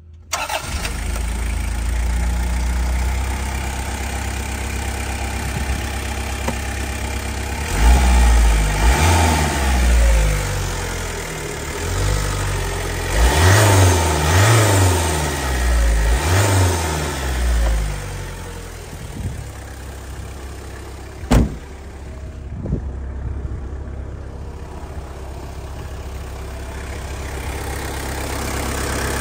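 Daihatsu Delta Wide's turbo-diesel engine starting and settling into idle, then revved up and let fall back several times in quick blips, before idling steadily again. A single sharp knock sounds about three quarters of the way through.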